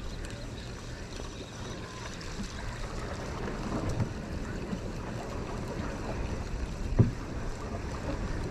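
Wind buffeting the microphone over water lapping against a small boat, a steady low rumble, with a single sharp knock about seven seconds in.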